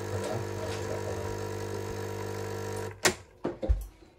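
A steady electrical appliance hum with a low buzz, cutting off suddenly about three seconds in, followed by a few sharp knocks.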